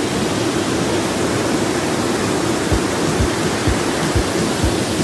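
Waterfall: a steady rush of water pouring over rocks into a pool. From about halfway through, soft low thuds come about twice a second.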